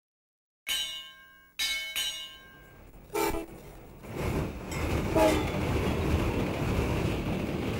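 Sound effects of an animated logo intro: three sudden hits about a second apart, each ringing with several tones, then another sharp hit, then a deep rumble that swells, with a loud hit partway through, and carries on.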